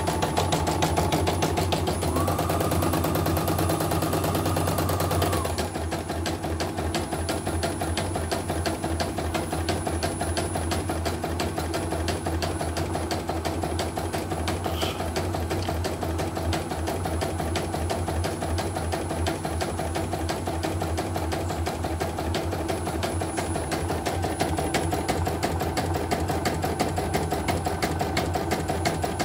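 CNY portable computerized embroidery machine stitching a design, its needle running in rapid, even strokes over a steady motor hum. It is test-stitching without fault after a missing bobbin case was fitted. A faint steady whine sounds for a few seconds near the start.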